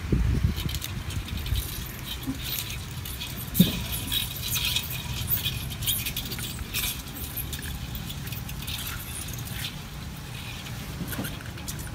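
Live crabs scrabbling in a steel bowl, their legs and claws making scratchy, irregular clicks against the metal, with one sharper knock about three and a half seconds in.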